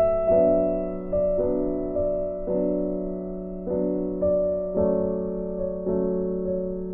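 Background music: an electric piano playing a slow melody over held chords, each note struck and fading, a new one about every half second.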